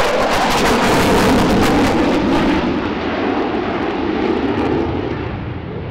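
An aircraft flying past, its engine noise loudest over the first two seconds or so and then easing off, with a slight drop in pitch as it goes by.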